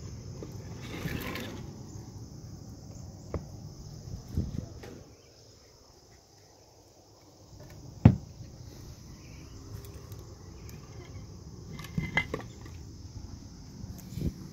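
Crickets chirring steadily, with a few knocks and clunks over a low rumble; the sharpest knock comes about eight seconds in, and a quick pair follows near twelve seconds.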